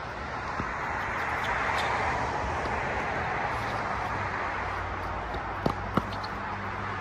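Tennis ball struck during a rally: a faint racket hit about half a second in, then near the end a bounce and a crisp racket hit in quick succession. Behind them is a steady rushing noise that swells in the first seconds.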